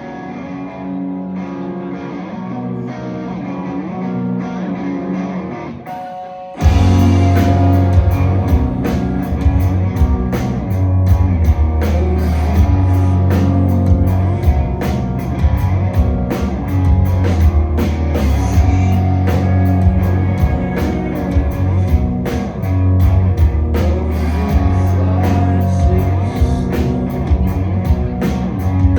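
Live rock band playing an instrumental passage: guitar alone for about six and a half seconds, growing louder, then the full band comes in at once with drums and heavy bass.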